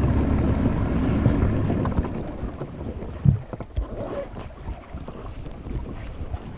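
Bass boat's outboard motor running under way with wind and water rushing past, easing off about two and a half seconds in as the boat slows. A single thump comes a little after three seconds, then lighter knocks over water noise.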